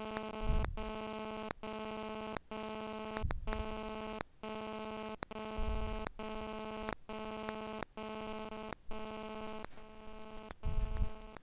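Steady electrical buzz with many overtones, cutting out briefly about once a second, with a few dull low thumps.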